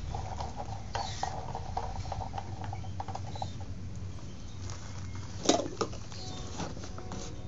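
Light clicks and knocks from hands working on a Stihl S10 chainsaw and its parts, with the sharpest knock about five and a half seconds in.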